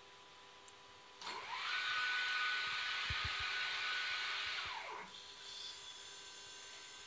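Cocktail robot's stepper motor driving the glass carriage along its rail. It starts about a second in with a whine that rises in pitch as it speeds up, holds steady over a hissing running noise for about three seconds, then falls in pitch as it slows and stops near five seconds.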